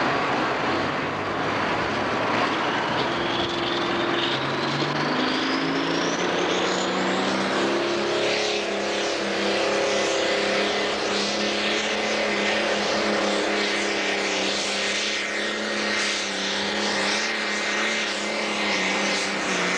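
Turbocharged diesel engine of a super stock pulling tractor under full load as it pulls the sled. The engine note and a thin turbo whine climb together over the first several seconds, then hold steady at high revs for the rest of the pull.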